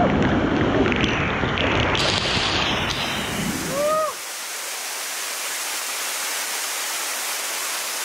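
Rushing water of a large waterfall, loud and full for about four seconds, then after a cut a softer, thinner rush of water. A short exclamation rises and falls just before the change.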